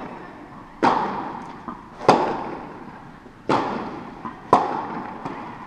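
Tennis rally: a tennis ball struck by rackets with four sharp hits about a second and a half apart and lighter bounces between, each echoing in a large indoor tennis hall.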